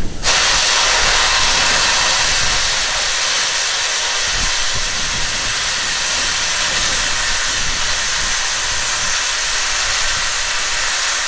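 Hunslet saddle tank steam locomotive venting steam low down beside its wheels: a loud, steady hiss that starts abruptly just after the beginning.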